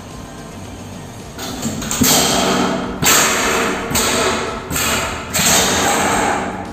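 A low steady hum, then from about a second and a half in, a run of loud rattling crashes roughly a second apart as a 1940s Crompton Parkinson Tapti 36-inch cast-iron ceiling fan breaks loose from its ceiling mount and falls.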